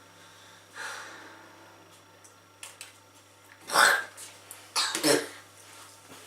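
A child coughing and clearing their throat on a mouthful of sharp pickled onion: a soft breath about a second in, then a loud cough about four seconds in and two quicker ones a second later.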